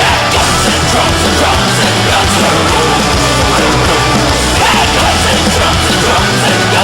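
Loud rock music with shouted vocals over a full band.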